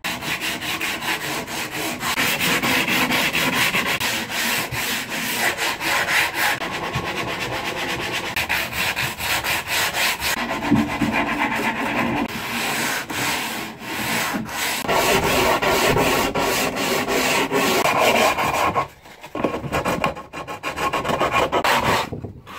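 Hand sanding of hardwood sledge rails with coarse P60 sandpaper on a sanding block: fast back-and-forth rasping strokes, pausing briefly a couple of times.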